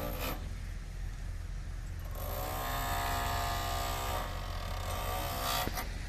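A motor vehicle engine comes up loud about two seconds in, runs for about two seconds and fades away, over a steady low rumble.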